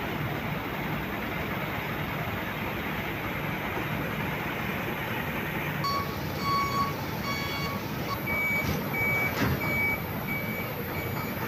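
Heavy truck diesel engines running steadily. From about halfway, truck reversing alarms beep: first a lower-pitched beeping, then a higher beep repeating about once every 0.7 s.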